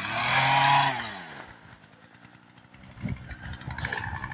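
Two-stroke chainsaw revved briefly, its engine note falling and fading back toward idle about a second and a half in.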